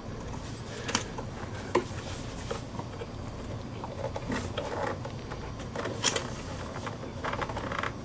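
Two 2 GB DDR2 SO-DIMM memory modules being pressed by thumb into the memory slots of a mid-2007 iMac, giving a little crunching, snapping noise as they latch in place: a few sharp clicks, the loudest about two seconds and six seconds in, over light handling noise.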